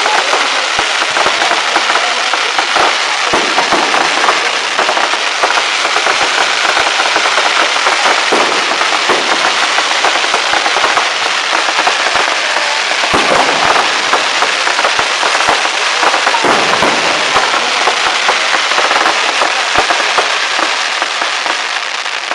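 Fireworks display going off in a dense, continuous barrage of rapid cracks and crackling, with heavier bangs mixed in, easing slightly near the end.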